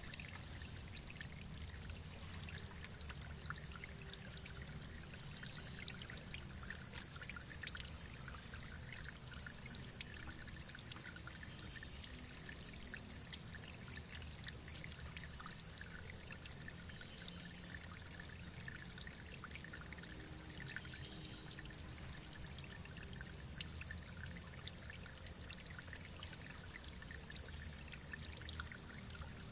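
Running water flowing steadily, an even rushing hiss with small splashes scattered through it.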